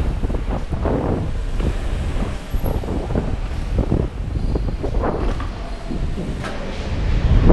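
Mountain bike ridden fast over packed-dirt jumps and berms, picked up by a camera mounted on the bike: a steady low rumble of tyres and frame that swells and eases with each bump, with wind noise on the microphone.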